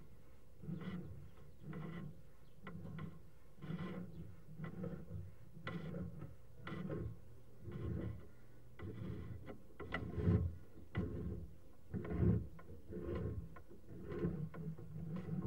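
Sewer inspection camera's push cable rubbing and scraping in irregular strokes about once a second as it is fed along the drain line.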